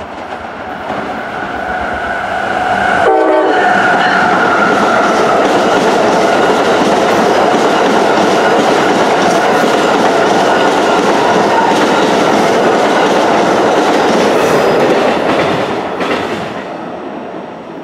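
Amtrak passenger train of stainless-steel Amfleet coaches passing through at speed: the rumble and rail clatter build over about three seconds, stay loud for about twelve seconds, then fade as the train clears. A horn sounds as it comes in.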